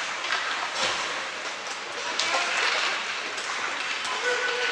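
Ice hockey play in a rink: a steady hiss of skates on the ice, with a few sharp clacks of sticks and puck.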